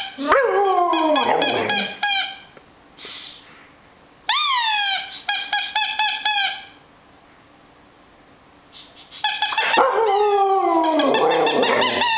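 A talking toy elephant sounding its short, high, identically repeated calls, and a husky answering it with howling, whining 'talk' that slides down in pitch, once near the start and again, longer, from about ten seconds in, overlapping the toy.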